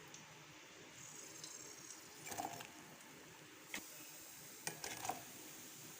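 Faint sizzle of bread-batter balls deep-frying in hot oil, with a few light knocks of a utensil against the pan as the golden-brown balls are lifted out.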